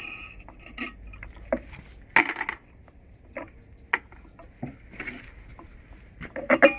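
Hard plastic and metal parts of a construction vacuum cleaner being handled, with the machine switched off: scattered clicks and knocks, a short scraping rattle a couple of seconds in, and a cluster of louder knocks near the end.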